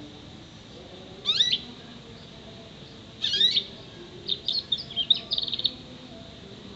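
Six-month-old canary singing in short bursts: a quick sweeping phrase about a second in, another about halfway through, then a string of short notes that ends in a fast trill.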